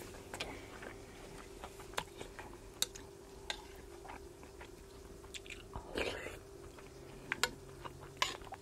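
A person chewing a mouthful of rice and salmon larb close to the microphone, with scattered light clinks of a spoon against a bowl as more is scooped up. A faint steady hum runs underneath.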